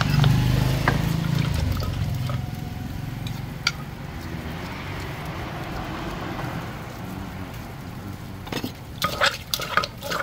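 Wooden pestle knocking in a clay som tam mortar, several quick strikes near the end as tomato and seasonings are pounded and mixed. Before that, a low vehicle engine rumble fades over the first couple of seconds, with a few small clicks and taps.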